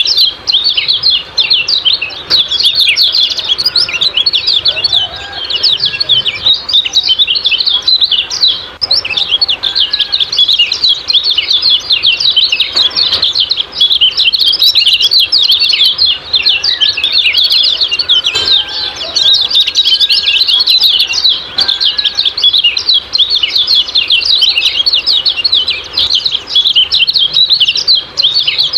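Kecial kuning white-eye singing its 'ciak-ciak' song: a dense, nonstop stream of rapid high-pitched chirps and twitters.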